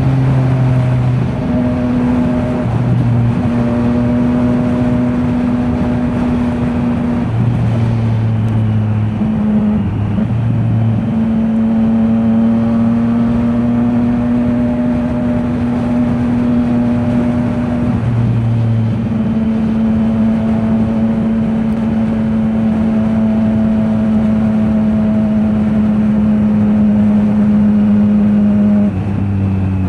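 2024 Triumph Street Triple RS 765's inline-three engine through an SC Project S1 slip-on exhaust, running at a steady engine speed while riding, its pitch holding for several seconds at a time with a few shifts.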